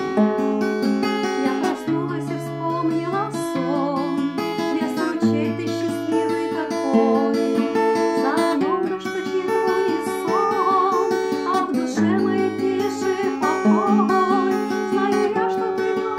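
Classical guitar strummed and picked in a steady song accompaniment, with a woman's voice singing a wavering melody over it through much of the passage.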